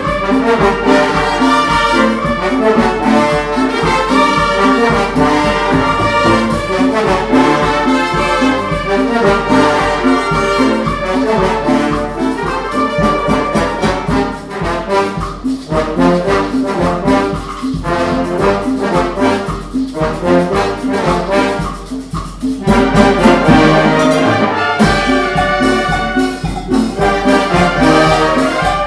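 A Mexican banda filarmónica, a wind band of flutes, clarinets, trumpets, trombones, sousaphones and bass drum, playing a lively piece with a steady beat. After a brief drop in volume past the middle, the full band comes back louder.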